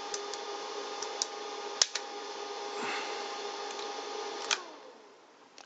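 An old bench power supply running with a steady hum, with a sharp click about two seconds in as the cassette recorder's play key goes down. A little after four seconds the hum cuts off and a tone slides down as the supply's overload protection trips, the sign of a short somewhere in the recorder's circuit board.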